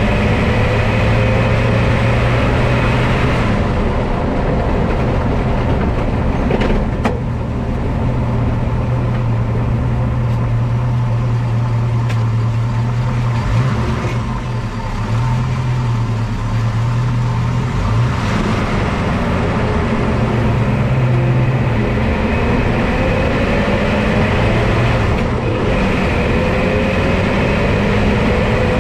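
Car driving and braking, with a steady low hum that holds through the slowdown: the braking noise under investigation. Near the end a tone rises as the car picks up speed again.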